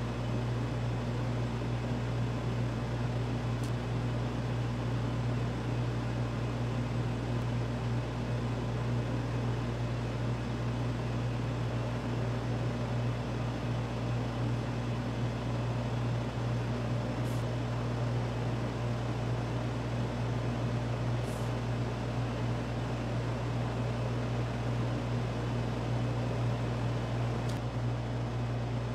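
Steady machine hum from an electric motor or fan, running evenly without changing speed, with a few faint ticks.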